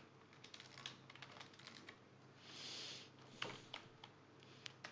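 Faint computer keyboard typing: scattered key clicks, with a short soft hiss about two and a half seconds in.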